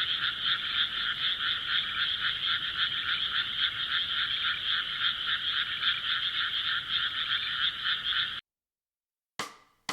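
A dense chorus of animal calls, rapidly pulsing in steady high-pitched bands, which cuts off suddenly about eight seconds in. It is followed by silence with two short clicks.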